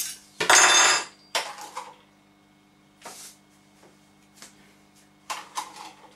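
Metal spoon and kitchen utensils clattering on a kitchen counter and scales: one loud metallic clatter with a ringing tail about half a second in, then a few light taps and clicks, over a faint steady hum.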